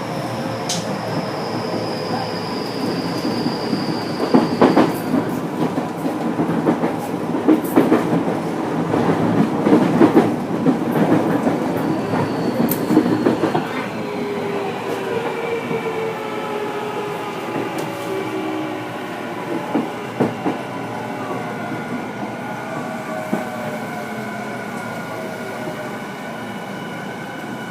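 Onboard a Tokyu 5050 series train's motor car: wheels clattering and knocking over rail joints and points for the first half, then the traction motor whine slowly falling in pitch as the train slows down.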